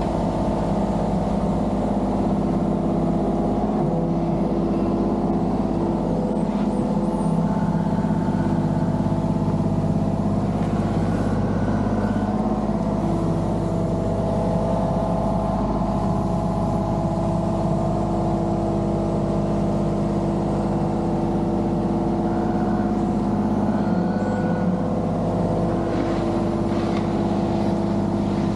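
Diesel engine of a compact construction machine running steadily at working speed, with a constant pitch and no breaks.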